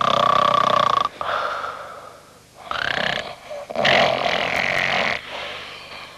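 A man snoring loudly in three long snores with pauses between, the snores carrying a whistling tone.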